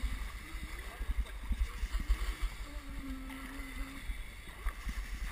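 Dragon boat paddles pulling through the water and water rushing past the hull, with wind buffeting the microphone as a heavy, uneven low rumble. A faint voice holds a call about three seconds in.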